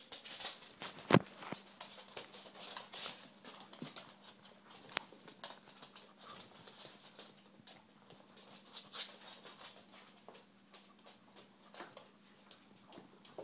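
A small puppy's claws clicking and pattering on a laminate floor, with rustling from a puppy pad as it moves on it. There is one sharp knock about a second in.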